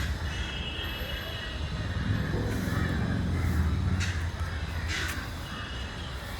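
Harsh, crow-like bird calls, heard a few times, over a steady low rumble.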